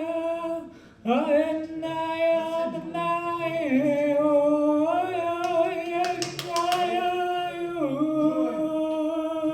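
A man singing long held notes without real words, sliding slowly between pitches, with a short break about a second in. A quick run of sharp clicks about six seconds in.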